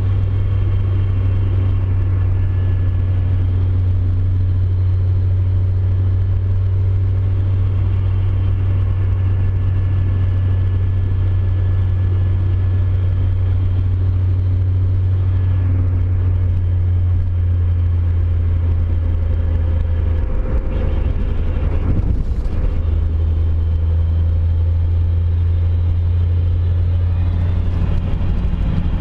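A 1993 Mazda Miata's 1.6-litre four-cylinder drivetrain runs with a steady low drone, and faint high-pitched metallic tones sit above it. The owner describes this as a metallic semi-grinding noise when in gear and suspects something loose rattling in the bellhousing. About two-thirds of the way in, the drone briefly drops and there is a single knock.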